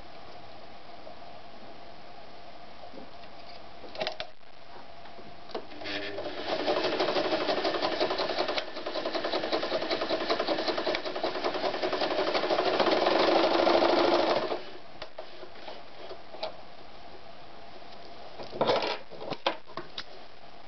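Janome Gritzner 537 sewing machine stitching through a thick strap: it runs for about eight seconds with a rapid, even needle clatter, eases off briefly partway through, then stops. A few sharp clicks follow near the end as the work is handled.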